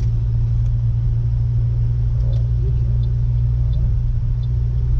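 Car engine and road noise heard inside the cabin: a steady low drone as the car drives slowly along a street.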